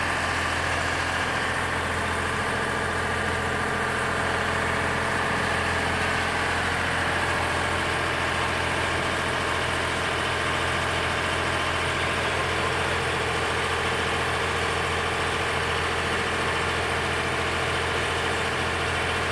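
Small wooden passenger boat's engine running steadily under way, a constant low drone with a few steady humming tones.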